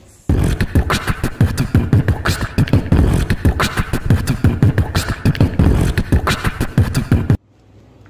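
Loud channel intro music built on a fast, dense percussive beat with vocal sounds, starting abruptly just after the start and cutting off suddenly about a second before the end.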